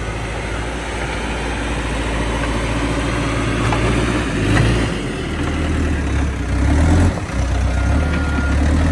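Caterpillar 426F backhoe loader's diesel engine running under work, its note rising and falling as it is worked. A reversing alarm starts beeping near the end.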